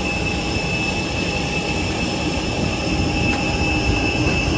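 Airbus A320's CFM56 jet engines heard from inside the cabin: a steady whine of several high tones over a low rumble.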